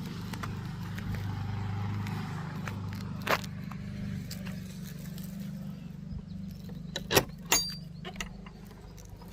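Footsteps climbing stone steps over a steady low hum, with a few sharp clicks and knocks; the loudest two come about seven seconds in, one with a brief metallic ring.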